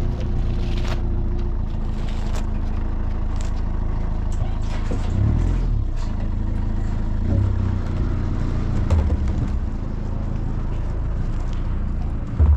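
A motor running steadily: a low rumble with a faint steady hum over it and a few light clicks.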